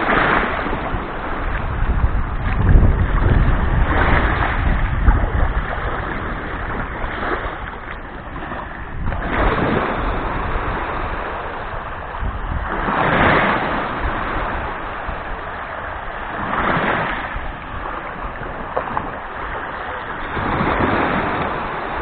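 Small Black Sea waves washing up a sandy shore, with a gentle swell of surf about every four seconds. Wind rumbles on the microphone for a few seconds near the start.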